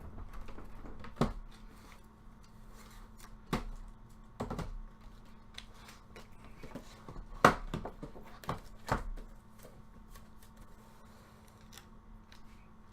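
Scattered light clicks and knocks of objects being handled on a desk, over a steady low hum.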